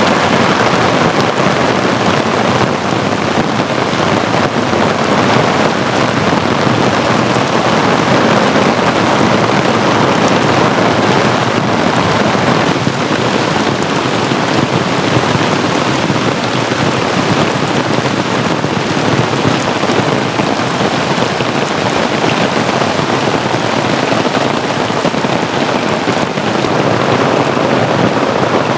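Heavy rain pouring steadily, a dense even hiss that keeps on without letting up.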